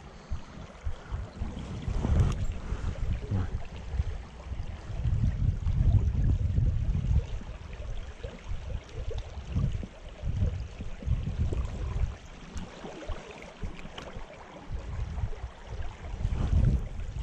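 Creek water running steadily, under an uneven low rumbling on the microphone that swells and fades every second or so, with a few faint knocks.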